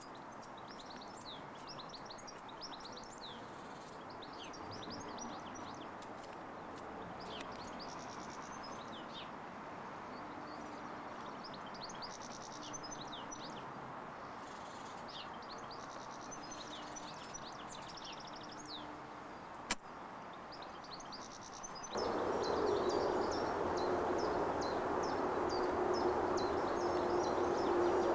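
Small birds chirping and twittering again and again over a steady background rush, as picked up by a Video8 camcorder's built-in microphone. A single sharp click comes about two-thirds of the way in; shortly after, the background grows louder and a low steady tone joins the birdsong.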